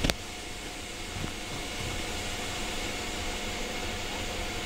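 Steady background hiss with a faint steady hum, broken by a single sharp click just after the start.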